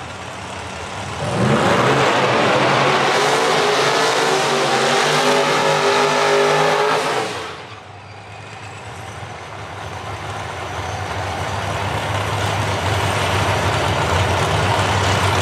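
Drag race cars doing burnouts. From about a second and a half in, an engine revs hard with its tyres spinning, then cuts off sharply halfway through. After that a low, steady engine note grows gradually louder.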